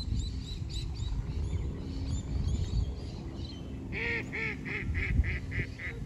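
A goose honking in a quick run of about eight calls, some four a second, in the last two seconds. Before that come faint high chirps, all over a steady low rumble.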